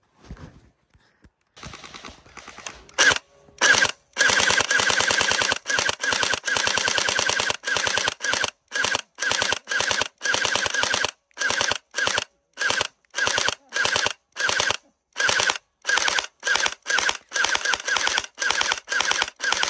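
Electric gel blaster firing on full auto: short and long bursts of a rapid, even clatter, about ten shots a second, over a steady high whine, starting about three seconds in with brief pauses between bursts.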